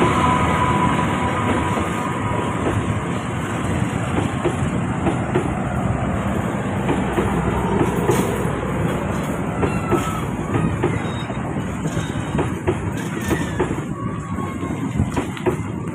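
Economy-class passenger coaches rolling past as the train slows to a stop, wheels clattering and clicking over the rail joints. A high squeal from the wheels sounds in the first couple of seconds, with brief shorter squeals later, and the rumble eases off slowly toward the end.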